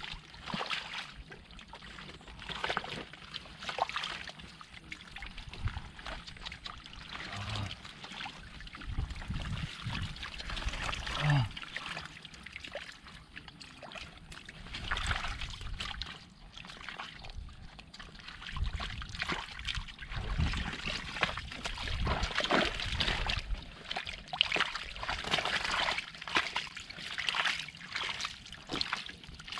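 Shallow muddy water sloshing, splashing and trickling as hands and a woven basket work through a mud pool and catfish thrash in the shallows, with many short irregular splashes and dull thuds.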